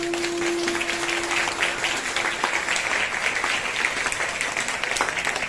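Audience applauding, with many hands clapping. The last held note of the dance music fades out about two seconds in.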